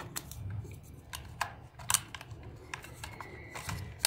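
Sharp plastic clicks and knocks from a toy remote-control stunt car's hard plastic body and parts being handled and pressed into place, about half a dozen scattered clicks with the loudest about two seconds in.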